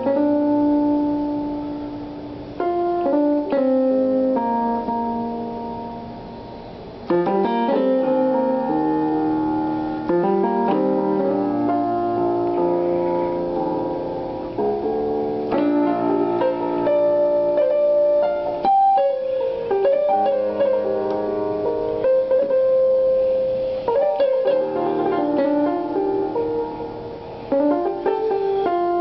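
Solo piano playing: chords are struck and left to ring a few seconds apart at first, then the notes turn into a busier, flowing passage.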